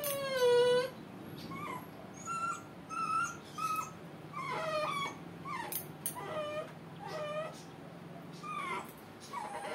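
A puppy whimpering and whining in a dozen or so short, high cries, some falling and some rising in pitch, the first the longest and loudest, as its freshly cropped ear is clamped and stitched.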